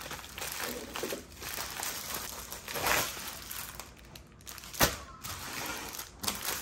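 Plastic packaging crinkling as a diamond painting kit in a clear plastic sleeve is pulled out of a poly bubble mailer and handled, with a single sharp tap about five seconds in.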